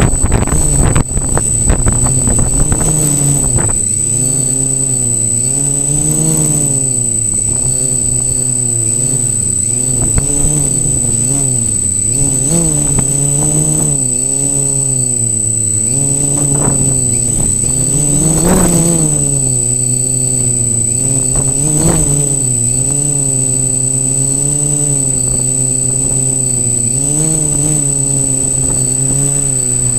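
Multirotor drone's electric motors and propellers humming steadily, the pitch wavering up and down as the throttle is constantly corrected, with a thin high-pitched tone over it. A rushing wind noise is mixed in during the first few seconds.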